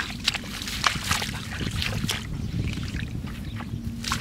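Hands splashing and sloshing in shallow, muddy paddy water while grabbing a struggling fish, with several sharp, irregular splashes.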